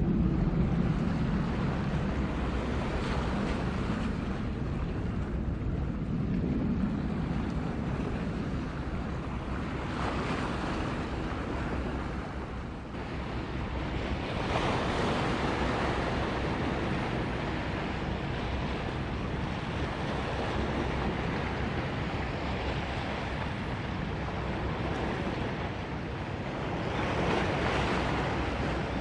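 Wind buffeting the microphone over the rushing wash of harbour water stirred by passing ships. The rush grows louder about halfway through and swells again near the end.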